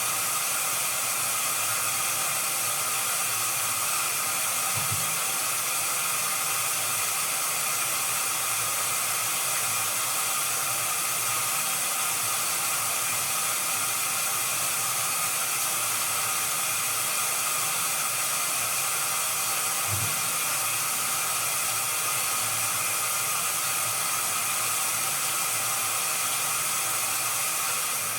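Washing machine running with a steady, even hiss, with two faint low thumps from the drum.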